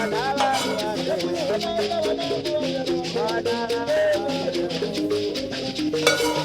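Background music with a shaker keeping a steady rhythm under a melody and bass line.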